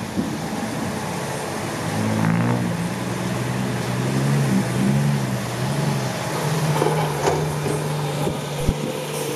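Heavy diesel engine working under load, its pitch rising and falling for several seconds, then settling to a steady note. A short sharp knock comes near the end.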